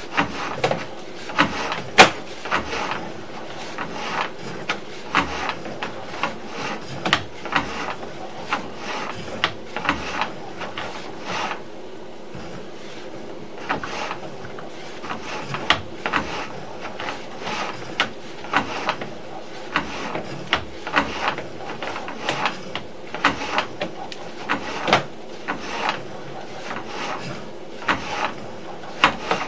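Sewer-camera push cable being hauled back out of the drain line by hand: irregular rubbing, sliding and clicking as the rod runs back through the cleanout, with a sharper knock about two seconds in.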